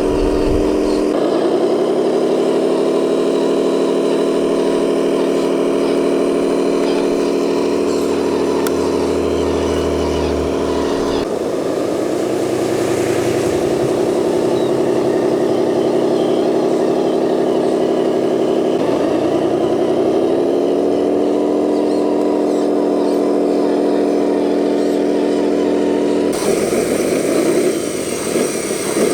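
Radio-controlled construction model's motor running with a steady multi-pitched whine. Its pitch rises and then holds, three times: about a second in, around a third of the way through and about two-thirds through. The sound changes near the end.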